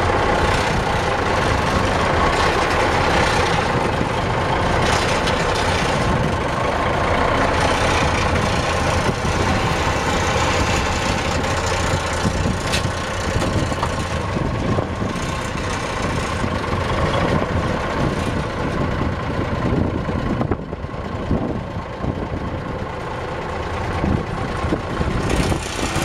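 The Cummins 250 six-cylinder diesel engine of a 1972 AM General five-ton dump truck running steadily, powering the PTO hydraulic hoist as the dump bed is raised and lowered.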